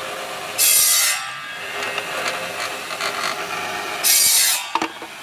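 Bamboo satay-skewer machine running with a steady motor hum, with two loud hissing bursts about half a second long, one near the start and one about four seconds in, as bamboo is fed through and worked by the machine; a few sharp clicks near the end.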